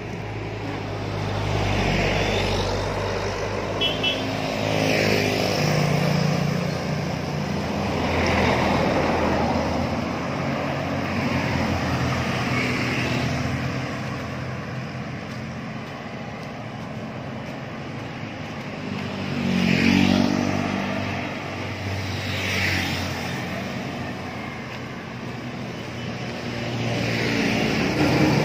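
Street traffic: motor vehicles passing one after another, each engine sound swelling and fading away, the loudest about twenty seconds in.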